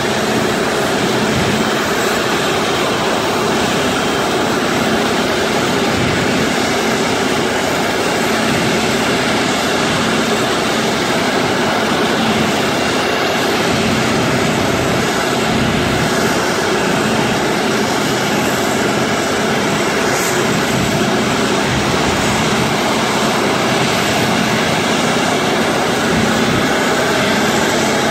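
Boeing 777 airliner's jet engines running at taxi power, a loud steady rushing noise, with the hiss of water-cannon spray from the airport fire tenders mixed in.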